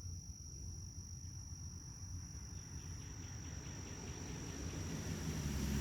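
Insects singing in one steady, high-pitched trill, with a fainter, higher note that stops about halfway through. A low rumble grows near the end.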